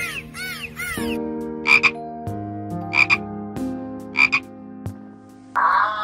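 Dolphin calls over background music. A run of quick rising-and-falling whistles fills the first second, then three short double squawks come about a second and a quarter apart. Near the end a different, wavering animal call starts.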